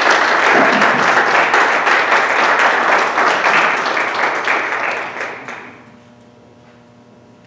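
Applause from a room of people clapping, which dies away about five and a half seconds in and leaves a quiet room with a faint steady hum.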